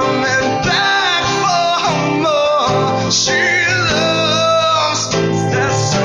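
Two acoustic guitars strummed and picked together while a man sings over them.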